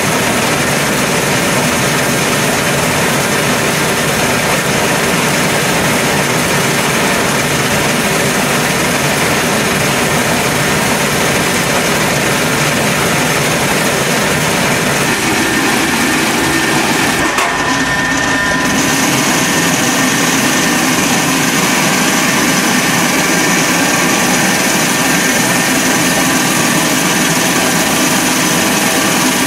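6LN-120 rice huller-mill running under load: a loud, steady mechanical rushing noise. Its texture shifts a little about halfway through.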